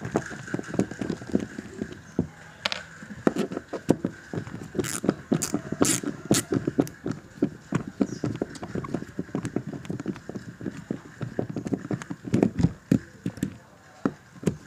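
Lakoni Pro ratchet screwdriver clicking in quick runs of ticks as its handle is worked back and forth, backing wood screws out of a pre-drilled meranti block. A few sharper clicks stand out about five to six and a half seconds in.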